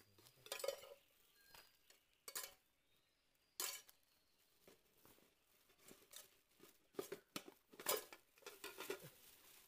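Scattered short clinks, knocks and rustles of objects being handled, with the sharpest knocks about half a second in and again near eight seconds.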